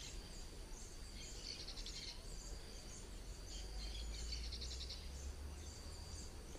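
Rural pond-side ambience: a steady high insect drone with short bird chirps repeating over it, and two brief rattling trills.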